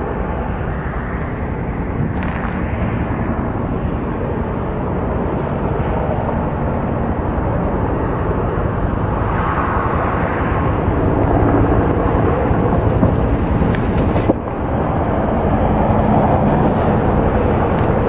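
Firefighting helicopter flying over the hillside, its rotor and engine a steady, even drone that grows a little louder in the second half. A brief knock sounds about fourteen seconds in.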